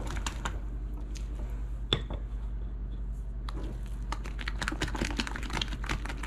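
A utensil beating thick cake batter by hand in a glass bowl, clicking and scraping against the glass in quick strokes. The clicks come faster and thicker in the second half, with one sharper knock about two seconds in.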